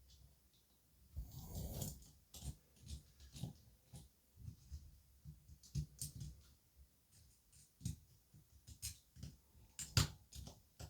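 Irregular small clicks, taps and knocks of hands working a small Phillips screwdriver and the microphone's small parts during disassembly. There is a short rustle about a second in and one sharp, loud click near the end.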